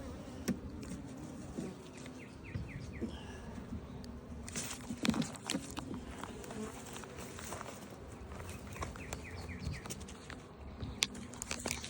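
Honeybees buzzing steadily around an opened hive, with scattered sharp clicks and knocks through it.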